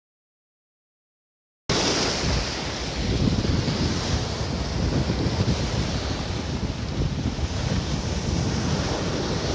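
Surf breaking and washing over a stony beach, with strong wind buffeting the microphone. The sound is completely absent for the first second and a half or so, then cuts in abruptly.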